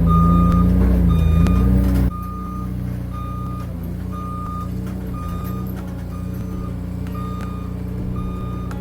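A machine's engine running steadily while its warning alarm beeps, about one beep every 0.8 s; the engine sound drops quieter suddenly about two seconds in.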